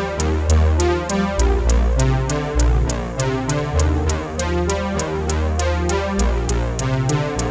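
Electronic background music: synthesizer chords over a deep bass line, with a steady drum-machine beat.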